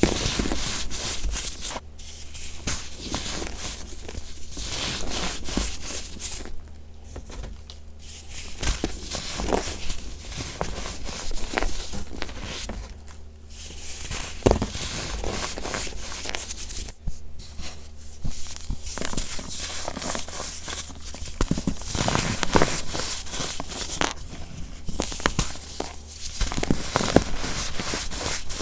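Gritty baking soda being pressed and crumbled, a dense run of crunching, squeaky crackles with irregular louder crunches, over a faint steady low hum.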